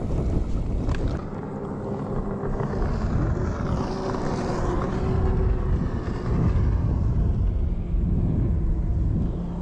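A motorboat's engine drones steadily from open water, with wind rumbling on the microphone beneath it.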